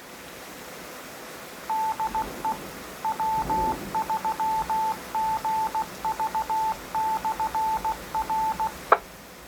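Morse code identification from an amateur radio repeater, heard over a ham receiver: a single steady pitch keyed in dots and dashes for about seven seconds, followed by a sharp squelch click.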